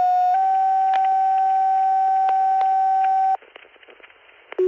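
Fire dispatch tone-out over a radio scanner: a steady alert tone steps slightly higher shortly after the start and holds for about three seconds, then cuts off to faint radio hiss. A short beep comes near the end.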